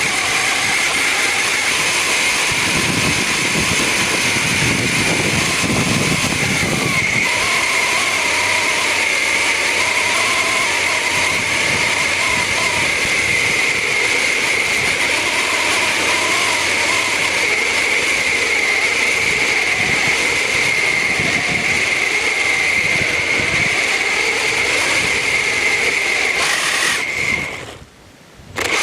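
Electric RC buggy driving, its motor and drivetrain giving a steady high whine over a rushing ground noise, heard from on board the car. The sound drops away briefly near the end.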